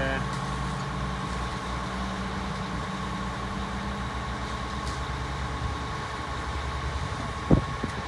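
Concrete pump truck's diesel engine running steadily with a low pulsing throb while it pumps concrete through the boom line. A single sharp knock sounds near the end.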